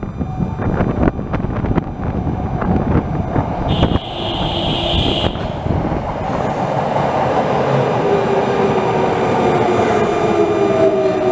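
Electric subway train running in from the tunnel and braking into the platform: a rumble with knocks of the wheels, a shrill horn blast for about a second and a half about four seconds in, then the motors' whine falling steadily in pitch as the train slows.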